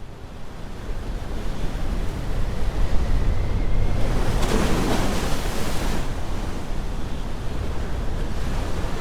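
Storm wind rushing, building over the first few seconds, with a louder surge about halfway through and a faint high whistle.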